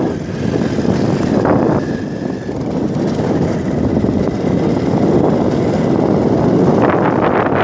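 Motorcycle being ridden over a gravel dirt track: the engine running under wind buffeting on the microphone, with a few knocks from the rough surface about seven seconds in.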